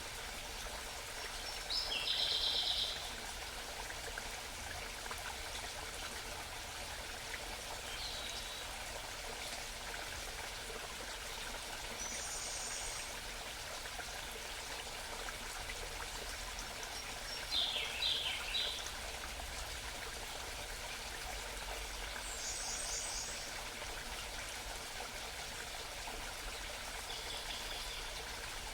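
A small forest stream babbling steadily, with songbirds giving about six short, high calls and phrases scattered through, the loudest near the start and about two-thirds of the way in.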